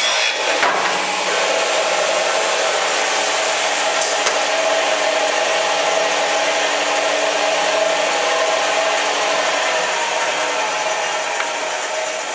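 Pistorius MNV-22-1/2 12-inch double miter saw running, with a steady hum and whine from its saw motors and blades. In the first second there is a short burst of noise as the pneumatic clamp presses the wooden moulding and the blades cut it. Over the last few seconds a tone slowly falls and the sound eases off.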